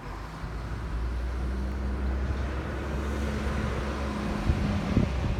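2015 Yamaha FZ-09's 850cc cross-plane triple idling steadily through a Scorpion aftermarket exhaust, with a few sharp pops near the end.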